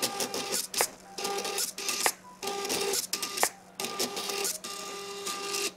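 Stepper motors of a belt-driven XY pen plotter whining in short stop-start moves as the pen draws, the pitch changing from one move to the next, with a few sharp clicks in between. The motors stop abruptly near the end as the drawing finishes.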